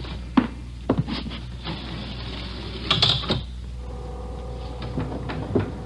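Radio-drama sound effects of an elevator: a few sharp clicks and clanks, then a steady mechanical hum from about four seconds in as the car runs.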